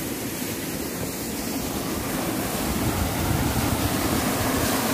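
Steady rushing of the water stream that flows under a traditional water mill and turns its grinding stone, getting slightly louder toward the end, with wind buffeting the microphone.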